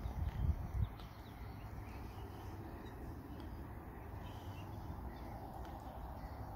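Low wind rumble on the microphone, with a couple of soft handling thumps about half a second in and faint bird calls.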